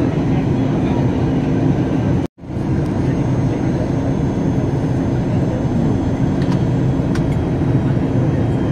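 Steady engine and airflow noise of an airliner heard inside the cabin, a dense low rumble with a faint steady hum. It cuts out abruptly for a fraction of a second a little over two seconds in, then resumes unchanged.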